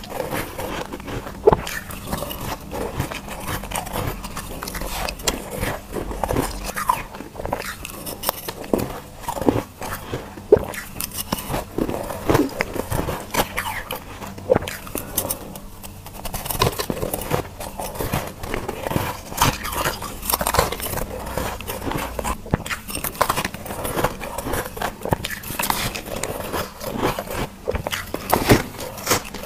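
Close-miked biting and crunching of soft, powdery shaved ice, in a dense run of many small, irregular crunches, with a brief lull a little past halfway.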